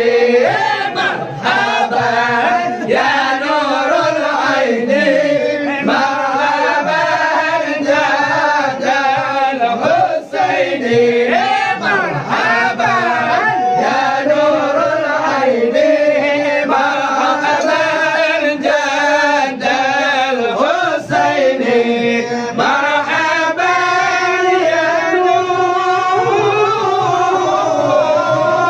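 A group of men singing an Acehnese syair together into a microphone, in unbroken melodic lines with gliding, held notes.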